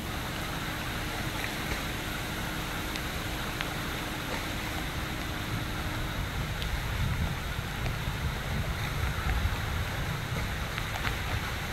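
Steady rush of wind and floodwater in a tropical storm, with water lapping and washing across a flooded street. Wind rumbles on the microphone more heavily from about halfway through.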